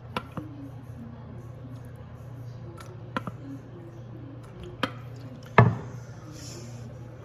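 Handling noises from working with the adhesive remover can and rag: a few sharp taps and knocks, the loudest about five and a half seconds in, over a steady low hum.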